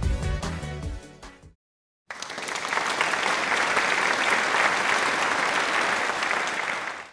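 Music fades out in the first second and a half, then after a brief silence a crowd applauds steadily for about five seconds.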